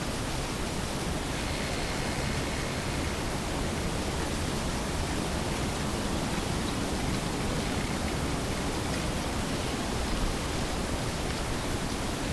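Steady, even hiss with no distinct knocks, steps or calls; a faint thin high tone shows briefly about two seconds in.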